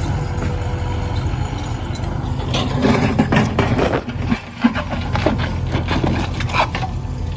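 JCB 3DX backhoe loader's diesel engine running steadily, with a run of knocks and clatters from about two and a half seconds in until near the end.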